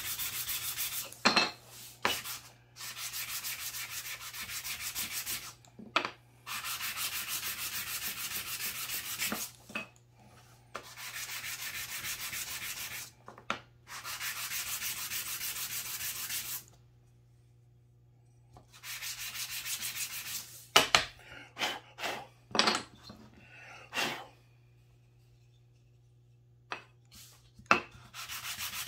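Wooden pine puzzle pieces being hand-sanded on a flat sheet of 220-grit sandpaper: steady scratchy rubbing in stretches of a few seconds with short pauses. About two-thirds of the way in, the rubbing gives way to a few sharp knocks, then goes quiet.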